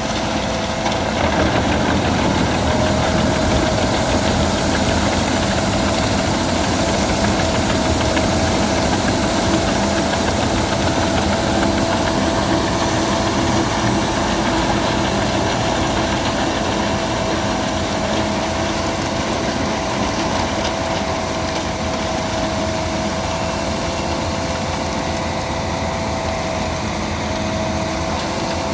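Albach Diamant 2000 wood chipper running steadily, its engine and rotor giving a loud, even drone with a steady high whine on top.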